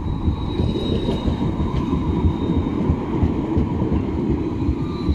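Frankfurt tram running on its rails: a steady rumble of wheels and running gear, with a thin high tone held over it.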